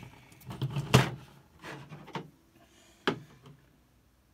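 Smith Corona Corsair Deluxe portable typewriter mechanism giving a few irregular clicks and clunks as it is worked by hand, the loudest about a second in and another sharp one about three seconds in.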